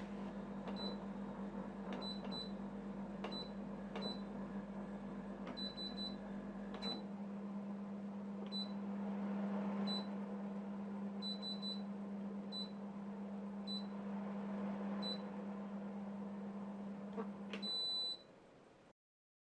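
Corona CD-P6318 compressor dehumidifier running with a steady hum while its control-panel buttons are pressed, each press giving a short high beep, a string of them at uneven intervals. Near the end the hum stops and a longer beep sounds as the unit switches off.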